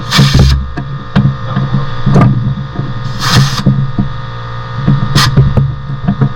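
Metal clinks and knocks, as of tools at work on a car, over a steady electrical hum, with a few short hissing bursts.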